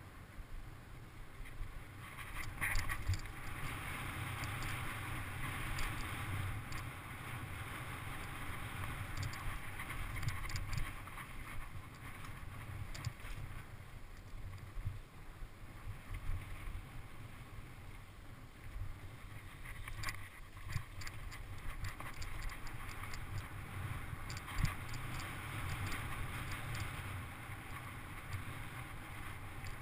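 Mountain bike ridden fast down a dirt trail: wind rushing over the microphone and tyres rumbling on the dirt, with many small rattles and clicks from the bike over bumps.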